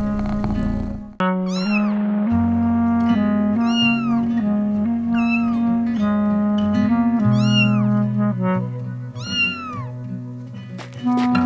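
A cat meowing about five times, each meow a short rising-then-falling call, over background music of held notes.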